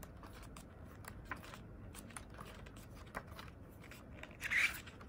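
Pages of a thick photobook-style album being turned by hand: soft paper rustles and light taps, with one louder swish of a page near the end.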